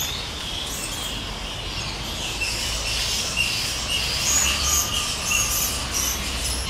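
Roosting colony of spectacled flying foxes calling: many short, high squawks and chirps overlapping one another, over a steady low rumble.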